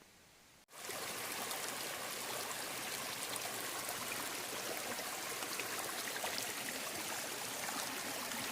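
Steady rush of running stream water with fine splashing, cutting in abruptly under a second in after a brief quiet outdoor stretch.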